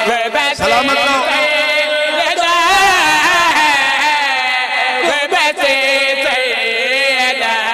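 A man chanting a devotional qasida through a public-address microphone in long, wavering, melismatic phrases that rise and fall. A steady held tone runs underneath.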